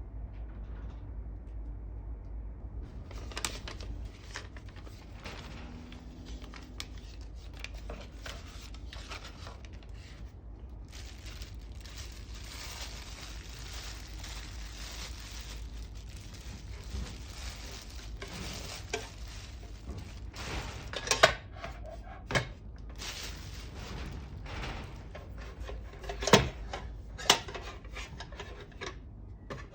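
An aluminium hangō mess tin being handled: scraping and rubbing, with light clicks throughout and several sharp metal clanks in the second half, the loudest a little past the middle and about three quarters through.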